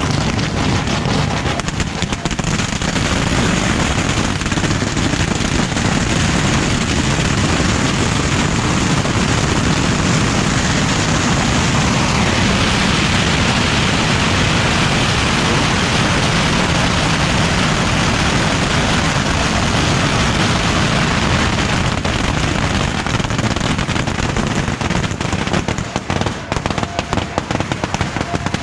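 A beehive rocket rack firing hundreds of bottle rockets in rapid succession: a dense, continuous crackling barrage that thins out into separate cracks near the end.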